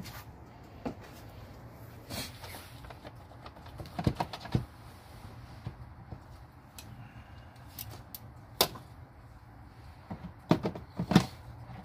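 Scattered sharp clicks and knocks of plastic engine-bay parts being handled by gloved hands at the air filter housing and intake, with a cluster of the loudest knocks near the end.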